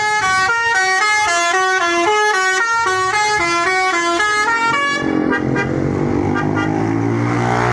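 Basuri V3 musical bus horn playing a fast stepping multi-note 'telolet' melody for about five seconds. It then stops, and the bus engine runs with rising pitch, with a few short horn notes.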